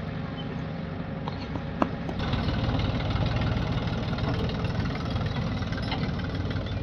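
Diesel engine of heavy machinery idling steadily, with a single sharp click about two seconds in.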